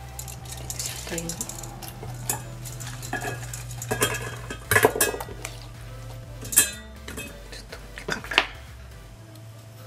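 A metal bowl and pieces of peeled taro clinking and knocking against a ceramic rice pot as the taro is set in, a string of scattered sharp knocks, the loudest about five, six and a half and eight seconds in, over a steady low hum.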